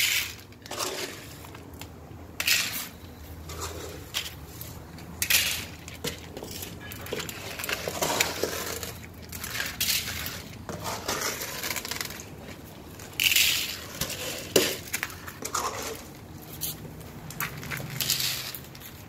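Dry cat kibble rattling and clinking as it is scooped and poured into plastic food trays in short bursts every few seconds, with stray cats crunching the kibble between pours.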